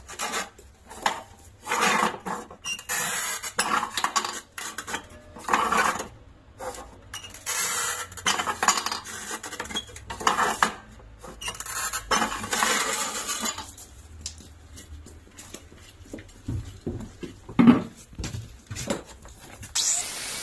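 Irregular clinks, scrapes and knocks of a large tile being slid and set against the metal bed and square of a manual tile cutter while cut lines are marked on it, with one sharp knock late on, the loudest sound.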